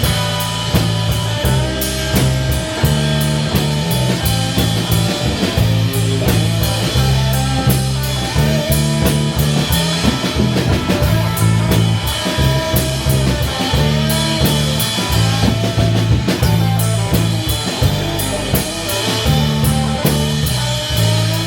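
Rock band playing an instrumental passage: guitar over a steady drum-kit beat and a moving bass line, with no singing.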